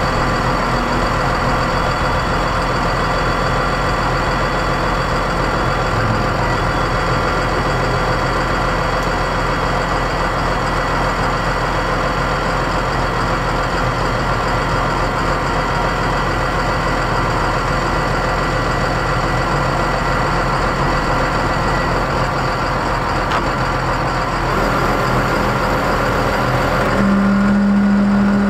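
Cummins ISB 5.9L diesel engine of a 2007 Ford F650 dump truck idling steadily. Near the end a strong low hum comes in and the sound gets louder as the dump hoist starts up to raise the bed.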